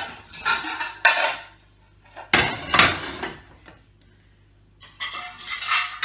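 Plates clattering and clinking against each other and the dishwasher rack as they are lifted out and stacked, in four bursts with short quiet pauses between.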